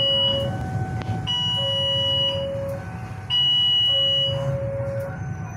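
Electronic warning alarm of a railway level-crossing signal with the barrier down: a high tone and a lower tone alternate and overlap, each about a second long, repeating about every two seconds. A low traffic rumble runs underneath.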